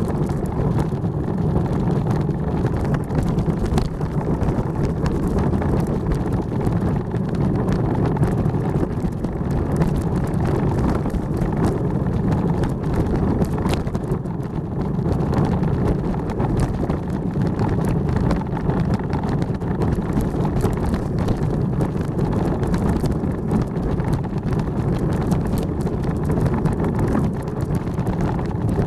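Bobsleigh running at high speed down the ice track: its steel runners make a continuous loud rumble with many small rattles and knocks as it rides the curves, and wind rushes over the onboard microphone.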